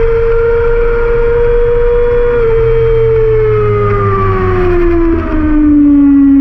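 Yamaha R6's inline-four engine running at high, steady revs, then falling in pitch from about four seconds in as the revs come down.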